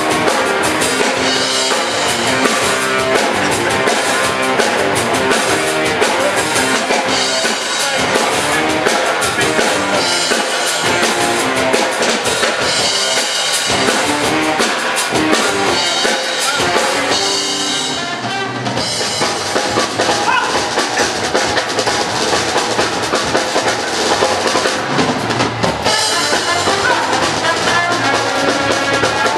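Live circus band playing up-tempo music with a steady drum beat, guitars and keyboard.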